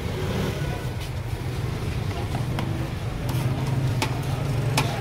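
Busy street ambience with a steady low engine hum. A few sharp clicks, the clearest near the end, come from a plastic plate knocking and scraping against a steel rice pot as pulao is scooped and served.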